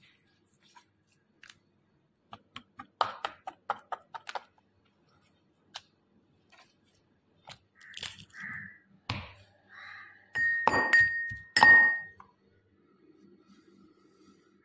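Kitchen prep sounds. A quick run of knife taps and cuts through raw chicken on a wooden cutting board, then two loud ringing clinks of hard kitchenware a second apart, each holding a high ring.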